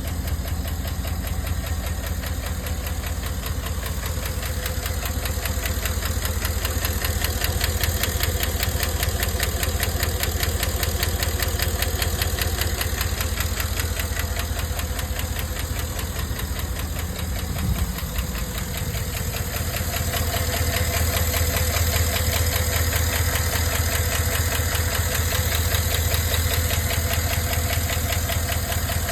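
Cadillac Escalade's 6.2 L V8 idling with a fast, even ticking from the valvetrain, the lifter noise that the owner suspects is a failing lifter. About two-thirds of the way through there is a brief change, after which the engine runs a little louder.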